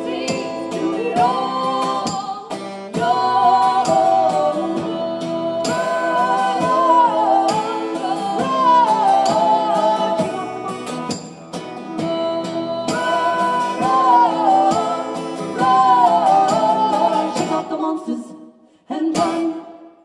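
Live acoustic folk music: two women singing over two strummed acoustic guitars. The song ends with a last strummed chord near the end.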